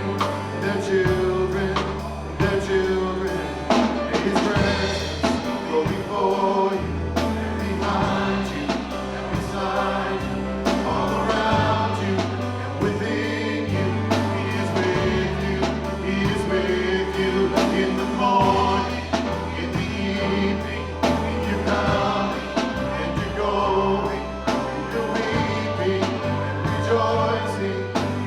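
A group singing a worship song over a band, with long-held bass notes and a steady beat.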